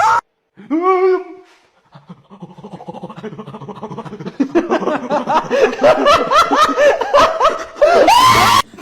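A short vocal cry about a second in, then a person laughing in quick repeated bursts that build into hard, loud laughter near the end before cutting off suddenly.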